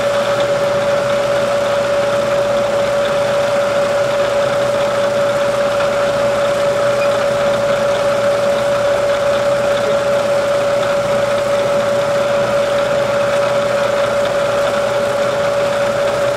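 Bridgeport milling machine running steadily, its spindle turning with an even, high steady whine.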